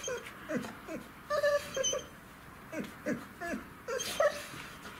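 Labrador retriever whining: a run of short, high, bending whimpers, several a second, with a brief pause about halfway through.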